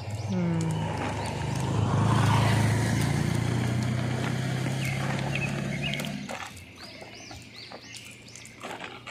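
A motor vehicle passing by: its engine hum swells, is loudest about two seconds in, and dies away about six seconds in. Short high bird chirps and small clicks follow near the end.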